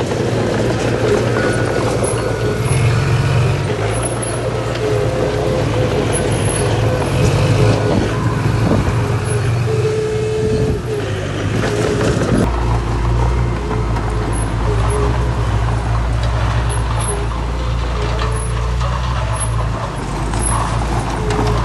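Heavy diesel earthmoving machinery running under load, a low steady engine hum with short squealing tones now and then. There is a clattering stretch a little past the middle, after which the engine note drops deeper.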